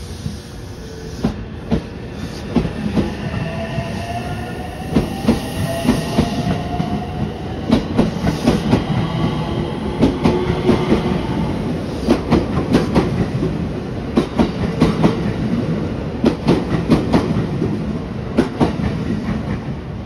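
JR West Hanwa Line electric commuter train pulling out of the station: a rising whine as it picks up speed, then wheels clattering over rail joints in quickening knocks, dying away near the end as the last car passes.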